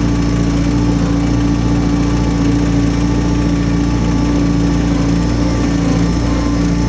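Diesel engine of a Jacobsen HR-5111 rotary ride-on mower running at a steady speed while the machine is driven.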